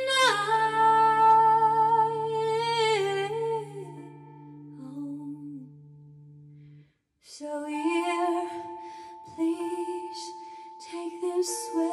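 A woman singing long held notes into a microphone over sustained backing chords. The voice drops out after about three seconds and the backing fades away near the middle, then she resumes singing over a new held chord.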